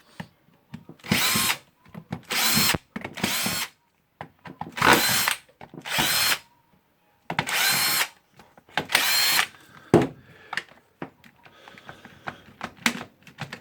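A cordless drill-driver runs in about eight short bursts of half a second or so, backing out the screws of a drill's plastic housing. A few light clicks follow near the end.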